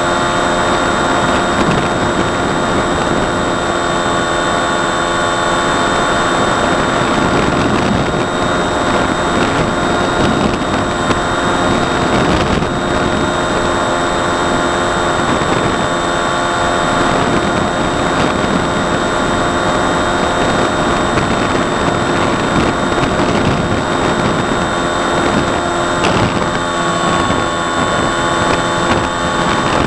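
Ranger FPV model plane's electric motor and propeller running at a steady cruise throttle: a multi-tone whine over rushing air, recorded by the plane's onboard camera. Near the end the whine dips slightly in pitch.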